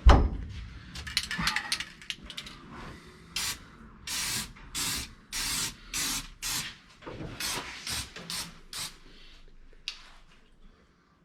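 Aerosol spray paint can sprayed in a run of about ten short hissing bursts over some six seconds, after a sharp knock and some handling noise at the start.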